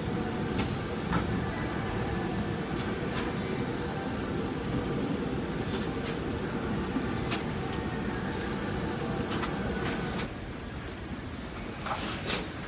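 Steady low background rumble that drops off about ten seconds in, with a few light clicks and taps scattered through it.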